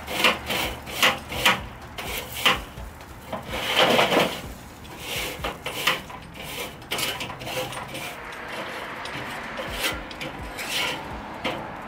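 Metal cooking grate of a Weber kettle grill being scraped clean while still hot. The strokes are short and repeated, louder and closer together in the first half, with the loudest about four seconds in, and fainter toward the end.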